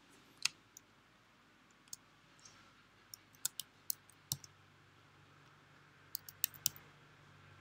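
Typing on a computer keyboard, with a few clicks: about a dozen short, sharp clicks spaced irregularly, with quiet between.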